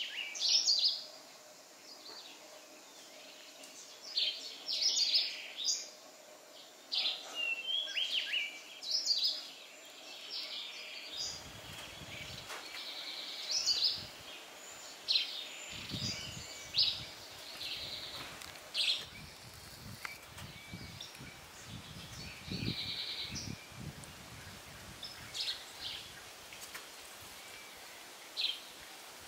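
Several birds chirping and calling in short, high phrases throughout. From about eleven seconds in, low rumbles come and go underneath.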